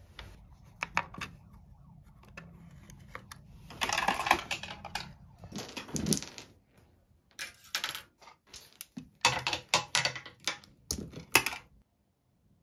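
Plastic cherry-ball string lights clicking and rattling against each other and their wire as they are pulled down and bundled up. The clatter comes in irregular spells, busiest about four seconds in and again toward the end, and stops abruptly shortly before the end.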